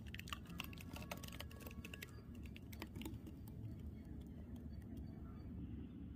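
Thick green chutney poured in a thin stream into a ceramic bowl: faint light clicks and small pops as it lands, mostly in the first three seconds, over a soft low background rumble.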